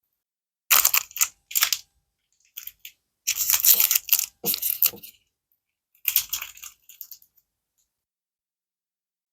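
Toy packaging being handled and opened: several short bursts of crinkling and rustling, the longest about three to five seconds in, with dead silence between them.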